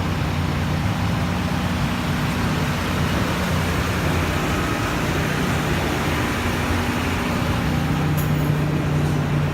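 Steady low hum of a large idling engine amid continuous street noise.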